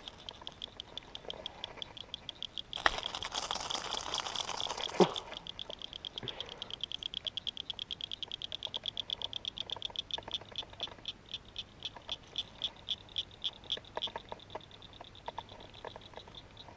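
Baitcasting reel cranked to bring in a hooked small bass, giving rapid, even clicking that runs for several seconds. About three seconds in comes a two-second rush of noise.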